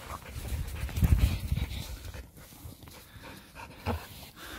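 Dogs panting close by, with a low rumble about a second in.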